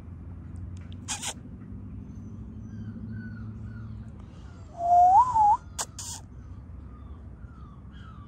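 A short, loud, wavering whistle about five seconds in, rising, dipping and rising again, made close to the microphone. Under it, small birds chirp faintly in short falling notes, and a low hum fades out before the whistle.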